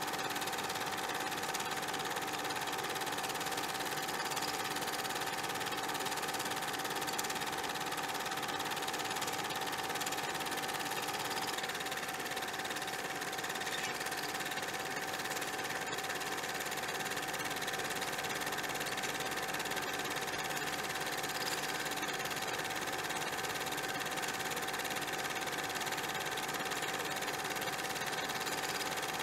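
A small machine running steadily: an even mechanical whirr with a constant hum tone that never changes.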